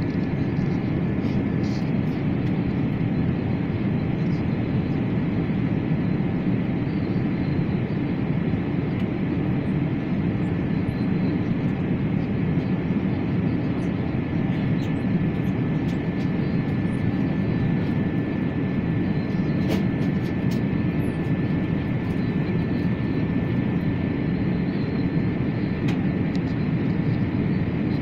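Steady cabin noise of an Airbus A380: an even, low rushing hum with a faint steady high tone above it, unchanging throughout.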